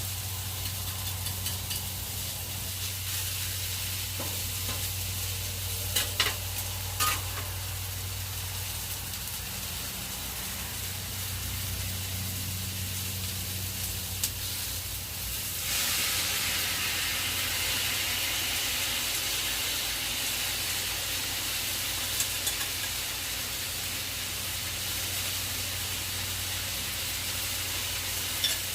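Food sizzling in a frying pan, with a few sharp clicks of a utensil against the pan and a steady low hum underneath. The sizzle turns louder about halfway through.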